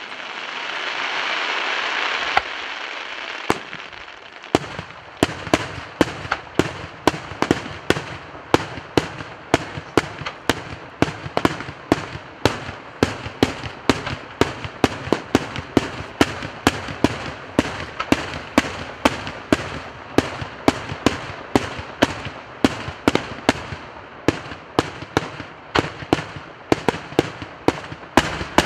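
Daytime aerial fireworks: a dense crackling rush for the first two seconds or so, then a rapid, steady string of sharp shell bangs, about two to three a second.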